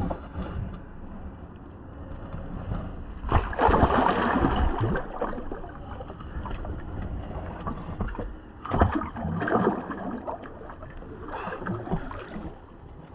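Shallow river water splashing as a zander is released by hand and kicks away. There are three bursts of splashing, the first and loudest a few seconds in, over a low rumble of handling noise.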